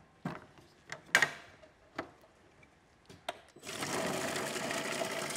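A few sharp plastic clacks as the clear lid of a commercial food processor is fitted and latched, the loudest about a second in, then the motor starts about three and a half seconds in and runs steadily, chopping liver with caramelized onions and hard-boiled eggs.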